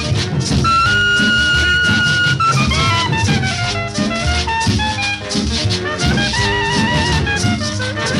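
Cumbia music: a steady beat with shaken rattle-type percussion under a melodic lead that holds one long note, then slides down in pitch about three seconds in.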